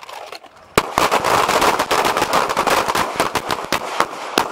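Several handguns fired at once by a line of shooters: a ragged volley of many overlapping pistol shots that starts about a second in and runs for over three seconds, thinning out near the end.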